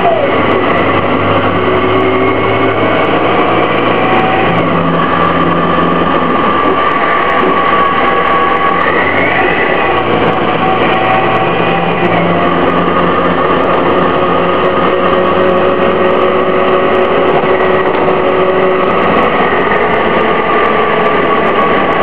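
2004 Orion VII CNG bus under way, its Detroit Diesel Series 50G natural-gas engine and ZF Ecomat-2 transmission running. Steady loud rumble, with tones that glide up and down several times as the bus speeds up, slows and shifts.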